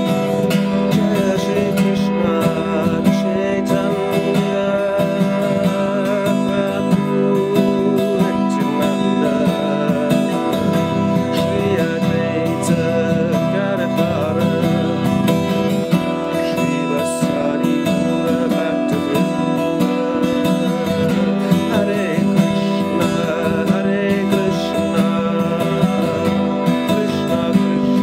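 Steel-string acoustic guitar strummed continuously, chords ringing under a dense, steady run of strum strokes.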